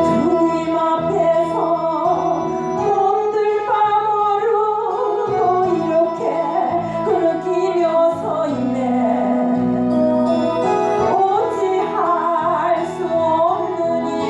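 Worship-song music: a melody with vibrato over sustained keyboard chords.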